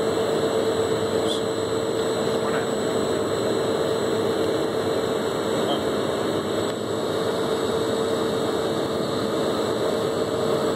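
Visco Jet VJ 350 tote agitator running steadily as it stirs oil into thick orange juice concentrate: a constant mechanical hum with one steady mid-pitched tone and a faint high whine above it.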